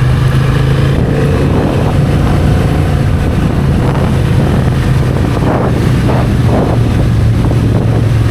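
Motorcycle engine running at a steady speed while riding, with wind noise on the microphone.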